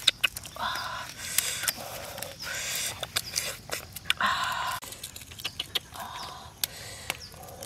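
Eggshell being cracked and peeled off a boiled egg by hand: sharp crackling clicks mixed with short scratchy rustles, recurring about every second.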